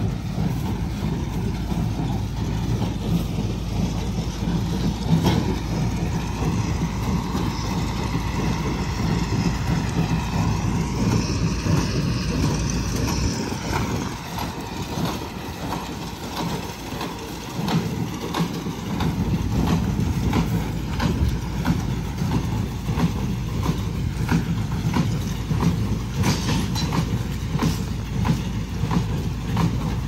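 Hay baler and bale wagon working in the field behind a tractor: a steady engine rumble with repeated clattering knocks from the machinery as bales are pushed up the wagon's chute. The low rumble eases for a few seconds about halfway through.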